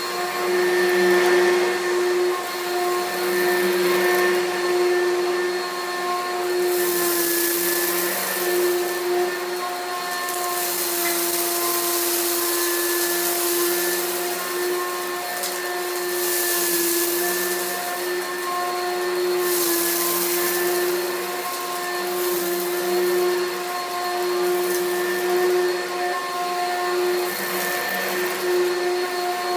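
Oreck XL Pro Plus upright vacuum running on carpet with a steady motor whine while being pushed over scattered debris in a mess test, with several spells of louder high hiss.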